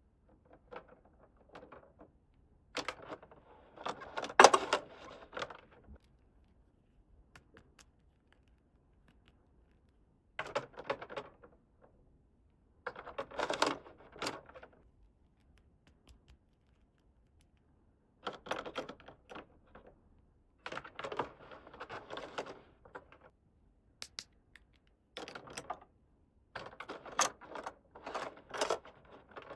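Small plastic toy pieces being handled: bursts of clicking, tapping and rattling, separated by pauses of silence, the loudest cluster about four seconds in.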